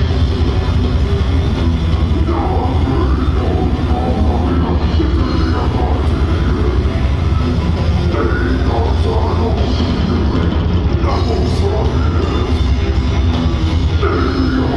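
Heavy metal band playing live, loud and continuous, with drums.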